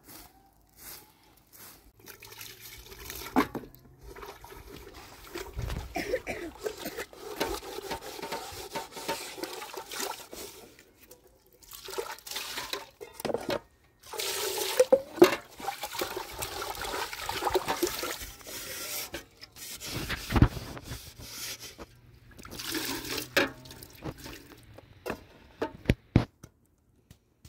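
Water poured from a metal pitcher into a metal basin, splashing and trickling over a hand, in several pours with pauses between them and a few sharp knocks of metal vessels.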